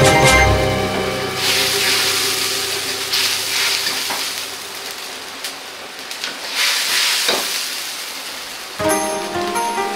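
Seasoned stock for the sauce hissing and bubbling hard in a hot wok, swelling and easing several times while it is stirred with a ladle, with a few light clicks of the ladle on the wok. Background music fades out about a second in and comes back near the end.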